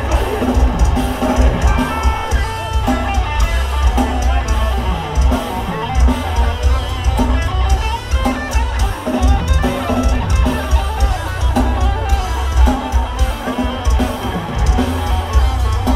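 Death metal band playing live: distorted electric guitars and bass over fast drumming, with a heavy low end.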